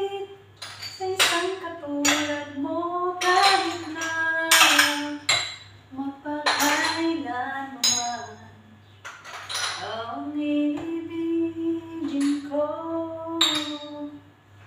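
Metal bowls, pots and utensils clinking and clattering as they are handled and stacked, over a woman singing a slow tune with long held notes.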